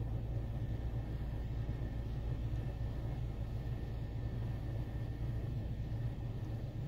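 Steady low rumble and hum heard from inside a car's cabin while it sits stopped in an automatic car wash, waiting between wash stages.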